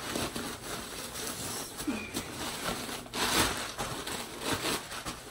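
Rustling and handling noises as things are moved about, loudest in a burst a little after three seconds in, with a faint short high chirp about two seconds in.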